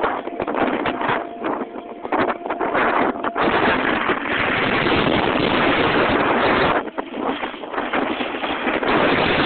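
Wind rushing over the camera microphone as it moves fast down a ski slope, mixed with the hiss of sliding over snow. The rush is strongest in the middle and eases briefly about seven seconds in.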